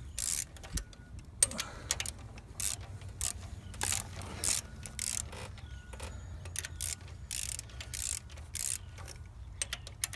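Socket ratchet clicking in repeated short bursts as it swings back and forth, backing a 10 mm nut off a GDI high-pressure fuel pump slowly, one turn at a time, against the pump's spring pressure.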